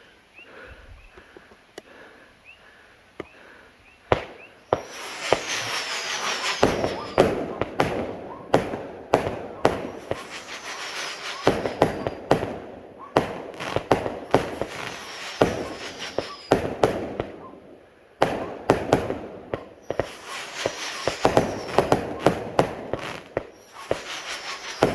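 A 144-shot consumer fireworks cake firing a rapid barrage of shots, starting about four seconds in, with crackling and high whistles that fall in pitch. There is a brief lull about two-thirds of the way through before the barrage picks up again.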